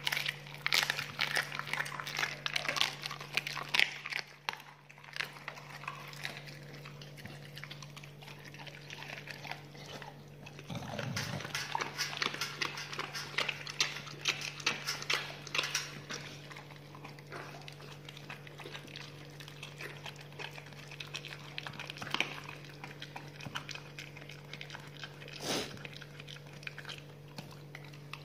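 Pit bull chewing and tearing at a raw whole chicken held out by hand: a dense, irregular run of wet smacks and crunches, busiest early and again around the middle, over a steady low hum.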